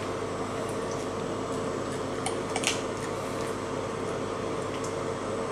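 Hydrotherapy underwater treadmill running: a steady machine hum and hiss with water sloshing around a West Highland white terrier walking on the submerged belt. A short sharp sound comes about two and a half seconds in.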